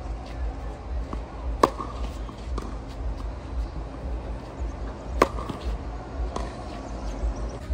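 Two tennis serves, the racket striking the ball with a sharp crack about a second and a half in and again about five seconds in, with a few lighter knocks between. A steady low rumble of wind on the microphone runs under them.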